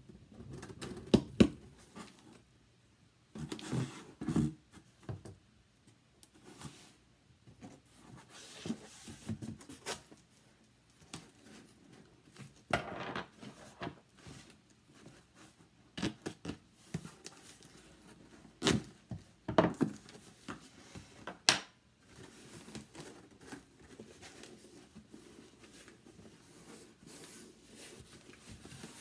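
Silver duct tape being pulled off its roll and pressed onto a cardboard box in short bursts, with a few sharp clicks on the cardboard in between.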